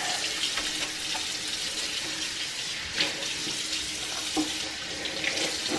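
Kitchen faucet running a steady stream into a stainless steel sink while the basin is scrubbed with a sponge, with a couple of light knocks about three and four and a half seconds in.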